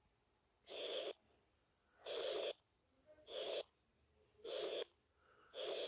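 Stylus strokes on a tablet screen as table lines are ruled one after another: five short scrapes, evenly spaced about a second and a bit apart.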